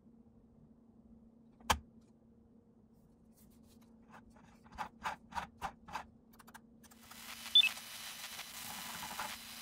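The ball of a Kensington Expert Mouse trackball drops into its plastic socket with one sharp knock, followed a few seconds later by a run of about six light plastic clicks as the ball and buttons are worked. From about seven seconds in, a rising hiss with two short high blips sets in over a faint steady hum.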